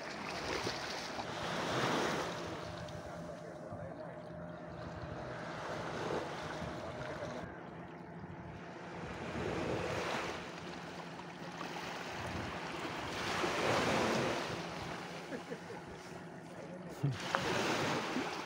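Small sea waves washing over shoreline rocks, swelling and easing every few seconds, with a sharp click near the end.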